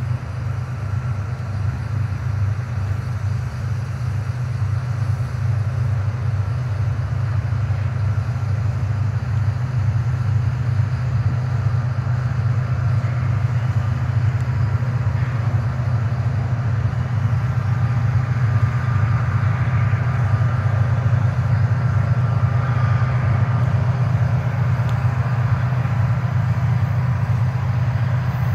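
Diesel locomotives of an approaching Union Pacific freight train: a low, steady rumble that grows slowly louder as the train draws near.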